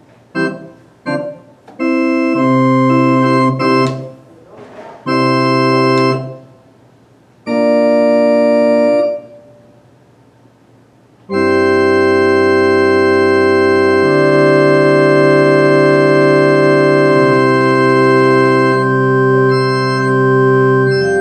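Baldwin HT2 electronic organ playing chords. It opens with a few short stabs, then plays three held chords with short pauses between them, then holds one long chord for about ten seconds, its bass notes shifting partway through.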